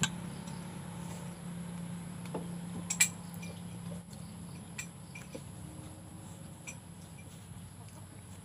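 Clam shells and a plate clinking now and then at a table: a few scattered sharp clicks, the sharpest about three seconds in, over a low steady hum that fades about four seconds in.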